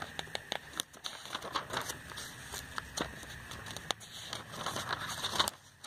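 Pages of a glossy paper catalogue being turned by hand: paper rustling and crinkling with many small sharp clicks, the loudest page flip near the end.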